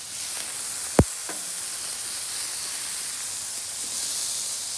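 Beef smash burger patties and onions sizzling steadily on a hot Blackstone flat-top griddle as they are flipped, with one sharp metallic clack about a second in from the stainless steel spatula striking the griddle.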